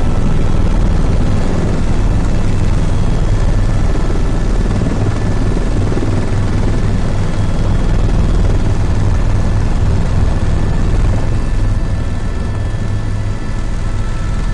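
Helicopter engine and rotor running steadily: a loud, even rumble with faint steady whines above it.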